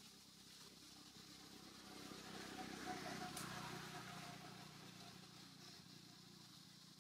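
A faint vehicle passing, swelling to its loudest about three seconds in and then fading away.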